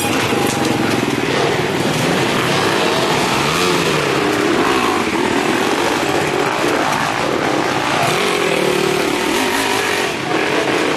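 Enduro motorcycle engines revving up and down under load as the bikes climb a steep dirt hill, the pitch rising and falling with the throttle.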